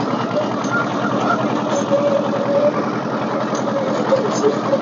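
Small Kubota machine's engine running steadily at low revs, not wound up.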